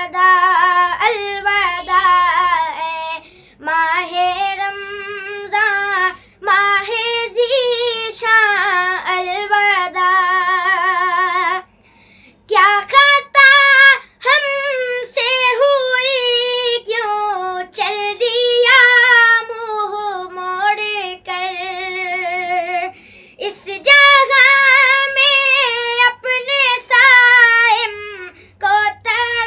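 A boy singing an Urdu naat bidding farewell to Ramadan, solo voice without instruments. He holds long, wavering, ornamented notes in phrases broken by short breaths.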